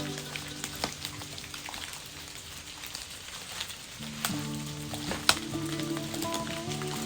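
Water splashing and dripping, heard as an even hiss with scattered sharp drips and ticks. Background music fades out at the start and comes back about four seconds in, with steady sustained notes.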